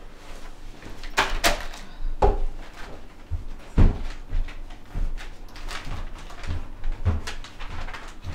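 Household handling noise: knocks, thumps and short rustling scrapes as things are picked up from a coffee table and gathered up, with footsteps. The loudest thump comes about four seconds in.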